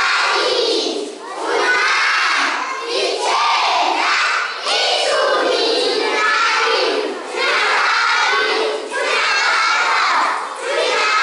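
A large group of young children shouting and chanting loudly together, in short phrases with brief pauses between them.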